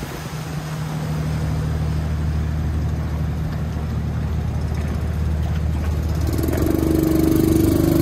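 Passenger riverboat's engine running steadily with a low hum; about six seconds in a second, higher engine note joins and the sound grows a little louder.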